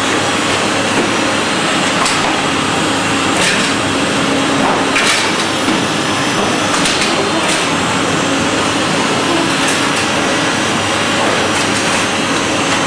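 Olive mill machinery running with a loud, steady noise and a low hum. Several sharp knocks and clatters are scattered through it as round filter mats of olive paste are handled and stacked on the press trolley.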